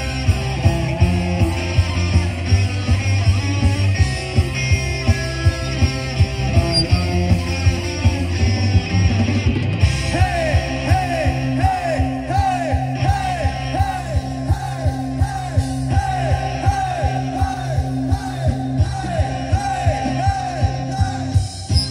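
Live punk rock band playing loud: electric guitars, bass guitar and a drum kit on a steady beat of about two hits a second, with a vocalist singing and shouting into the microphone.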